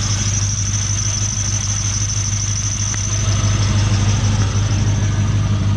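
LS1 V8 idling steadily through its newly sealed exhaust, quiet enough that a high, steady squeal sits over it, fading somewhat near the end. The owner puts the squeal down to a failing idler pulley bearing, not the belt.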